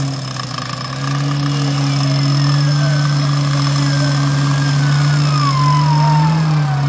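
Four-wheel-drive jeep's engine running steadily with a low hum that drops for about the first second and then carries on. Over it, a thin whine slides slowly down in pitch through the last few seconds, while the stuck jeep is pulled out on taut winch lines.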